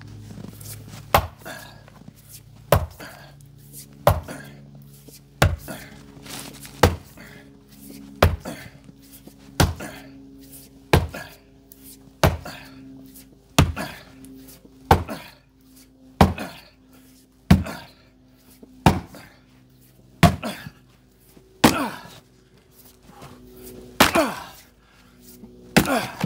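Fiskars Isocore 8 lb splitting maul striking a large wood round again and again, one heavy thunk about every second and a half, some eighteen strikes. The last, loudest strikes near the end split the round.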